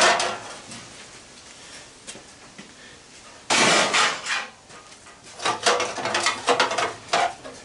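A sudden loud metallic clank about three and a half seconds in, ringing briefly, then a run of lighter clinks and taps near the end: tools working loose the bent-over tabs on an old sheet-metal fan housing.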